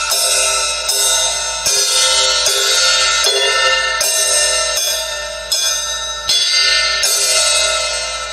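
Drum improvisation on metal percussion: a cymbal is struck about ten times, roughly one hit every 0.8 seconds, and each hit rings on into the next. The last hit, near the end, is left to ring and fade.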